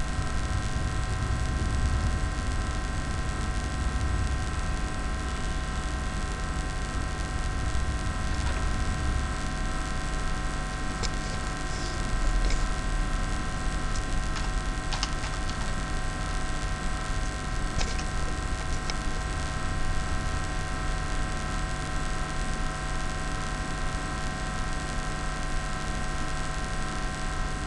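Steady background hum and hiss from the recording setup, made up of several constant hum tones over a low rumble. A few faint mouse clicks sound in the middle stretch.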